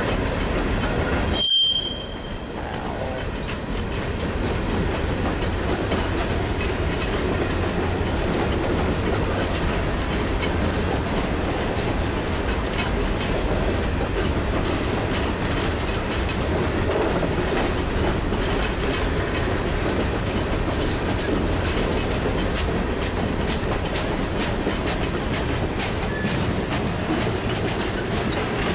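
Freight train rolling past close by, covered hopper cars and then tank cars: a steady rumble of steel wheels on rail with many light clicks. There is a brief break in the sound about a second and a half in.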